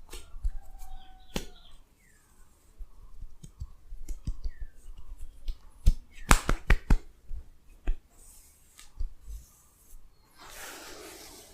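Hands working during a head massage: scattered sharp snaps, taps and clicks, with a quick run of loud snaps about six seconds in and a short rustle near the end.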